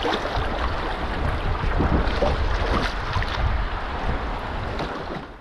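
Rushing water of continuous class one rapids around a canoe, with wind buffeting the microphone in a low rumble.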